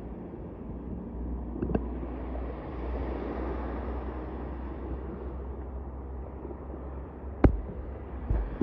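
Wind rumbling on the microphone over the wash of the sea, with a sharp knock about seven and a half seconds in.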